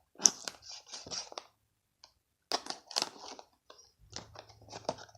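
Adhesive tape being picked at and peeled off a toy's packaging, in scattered short scratchy bursts with a brief pause partway through.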